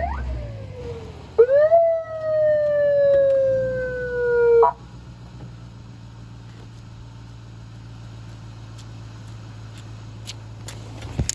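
Police siren on a Ford Crown Victoria Police Interceptor (P71): a quick chirp, then a wail held for about three seconds that sinks slowly in pitch and cuts off suddenly. After it, the straight-piped V8 idles quietly and steadily, and a few footsteps on the asphalt sound near the end.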